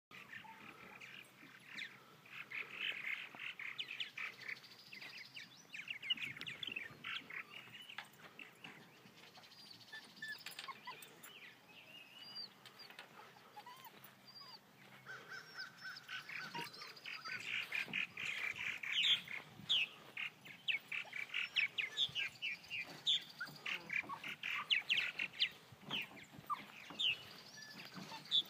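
A colony of purple martins chirping and chattering, runs of quick gurgling notes overlapping one another, busier and louder over the second half.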